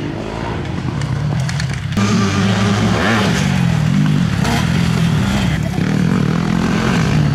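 Several motocross dirt bikes running, their engines revving up and down as they take a jump and a corner. The sound gets louder about two seconds in.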